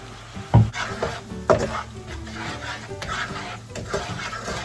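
Wooden spatula stirring a bubbling honey, butter and sugar sauce in a wok, the sauce sizzling. Two loud knocks of utensils against the pan come about half a second and a second and a half in, with lighter clicks after.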